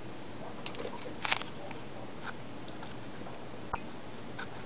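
Steady hiss with a few faint, short clicks and crackles, a small cluster of them a little over a second in and a single sharper click near the end.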